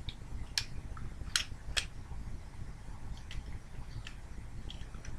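Plastic clicks and ticks from a Transformers Voyager Bulkhead action figure as its hinged parts are worked by hand: three sharp clicks in the first two seconds, then fainter ticks, over a low steady hum.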